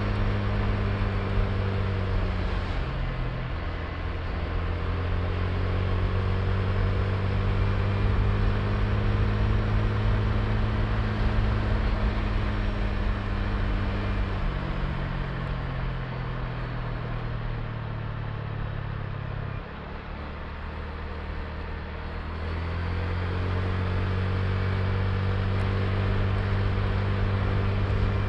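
Honda Click i scooter's single-cylinder engine running under way, with a steady rush of riding noise. The engine note drops about halfway through as the throttle eases, dips further for a few seconds, then rises again.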